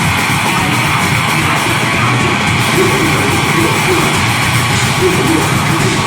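Deathgrind band playing live, loud and dense: distorted guitars and rapid drumming under yelled vocals.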